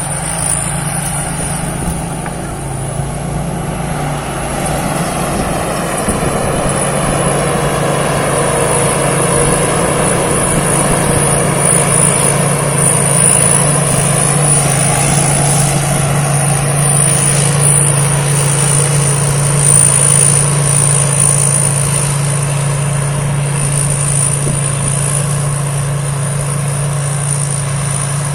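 Rice combine harvester built by Thai Seng Yont running steadily while it harvests: an even engine drone with machinery noise and a constant high whine over it, a little louder from about four seconds in.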